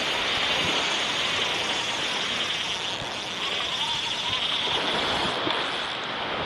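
Small waves breaking and washing up a sandy beach, a steady hiss of surf.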